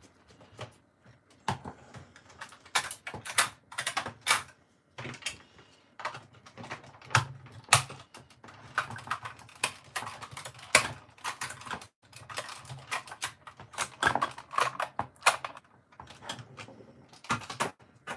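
Hard plastic parts of a Buzz Lightyear action figure clicking and knocking as gloved hands handle it and press it together, in an irregular string of sharp clicks.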